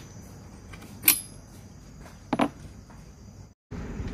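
Metal tools and small engine parts clinking and knocking as they are handled: one sharp, ringing clink about a second in, then a couple of duller knocks a little after two seconds. The sound cuts out briefly near the end.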